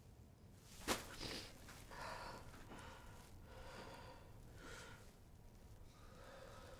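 A person's quiet breathing and sighs, slow soft swells every second or so, with a single click about a second in.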